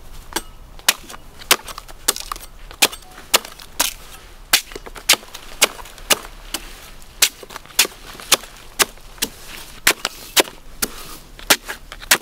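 A blade chopping into coconut, sharp hard strikes at a steady pace of about two a second.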